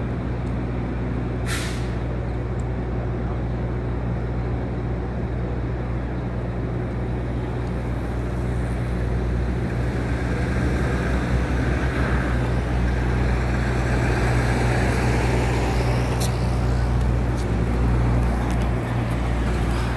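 City traffic noise: a steady low rumble of large vehicle engines, with passing traffic growing louder over the second half. A short hiss about a second and a half in.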